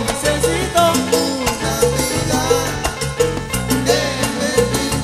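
Live salsa band playing, with a steady bass line, percussion and short melodic phrases over it; no lead vocal is picked out.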